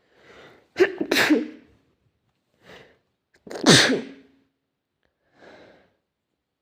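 A person sneezing twice. Each loud sneeze follows a short breath in: the first comes about a second in, the second about three seconds later. A faint short breath follows near the end.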